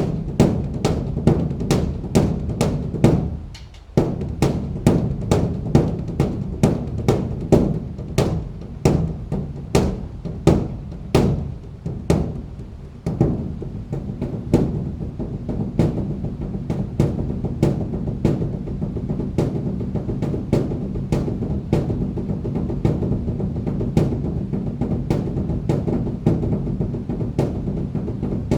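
Large Buddhist temple drum (beopgo) beaten in rapid, uneven strokes, several a second, running at times into rolls, over a steady low ringing hum. The strokes ease briefly about four seconds in and again around thirteen seconds, then continue denser.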